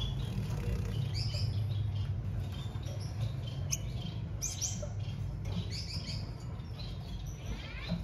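Fledgling finch giving short, high chirps in small clusters, over a steady low hum.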